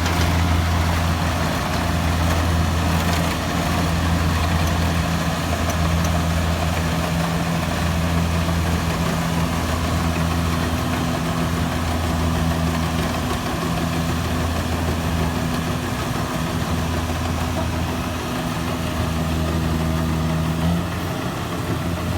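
An engine running steadily at a constant speed, its note shifting slightly near the end.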